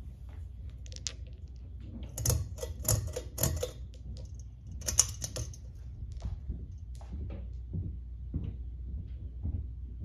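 Pull-chain switch on a Hunter Granville ceiling fan clicking, about four sharp clicks with the chain rattling between about 2 and 5 seconds in, then lighter ticks as the chain swings. A steady low hum from the running fan motor lies underneath.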